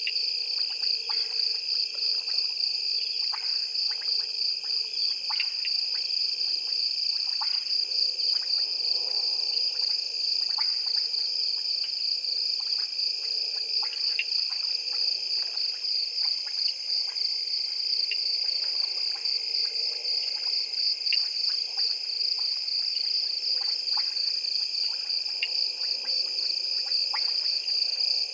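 Night chorus of frogs and insects: a steady, fast-pulsing high trill with many short chirps and clicks scattered through it.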